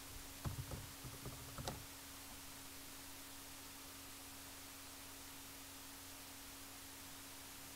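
A quick run of keyboard keystrokes and clicks, a password being typed and submitted, over a steady faint low electrical hum with hiss, which is all that remains once the typing stops.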